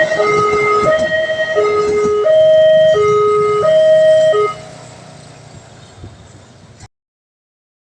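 Railway level crossing warning alarm sounding a loud electronic two-tone signal, alternating between a higher and a lower note about every half second, warning of a train. It cuts off about halfway through, leaving faint background noise, then the sound drops out entirely near the end.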